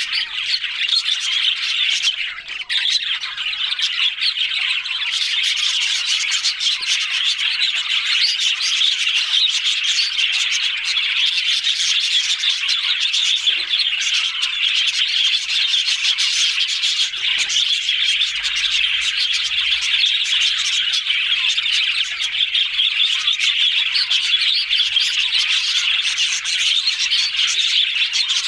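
A flock of budgerigars chattering and warbling continuously, a dense mix of overlapping chirps and squawks.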